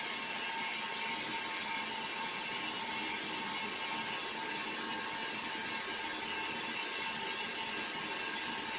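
Small workshop machine tool running steadily, a constant whir with a faint steady whine in it.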